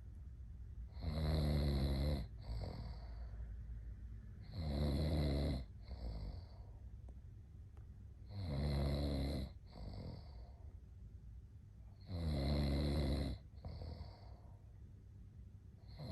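A man snoring in a slow, even rhythm: four loud snores, each about a second long and coming every three and a half to four seconds, each followed by a shorter, softer breath out.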